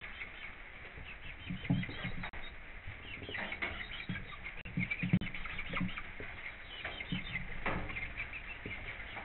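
Chickens softly clucking and chirping on and off, with short clicks and scratches as they peck and scratch at feed in the coop litter.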